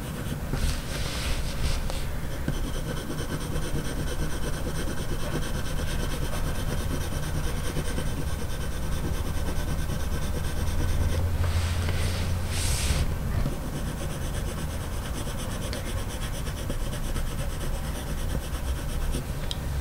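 Faber-Castell Polychromos coloured pencil scratching on paper as fine fur strokes are laid down, with louder stretches about a second in and again around twelve seconds, over a steady low hum.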